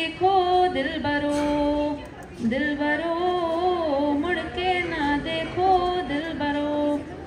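A girl's unaccompanied singing voice holding long, ornamented notes that waver in pitch, with no clear words. There is a short break about two seconds in.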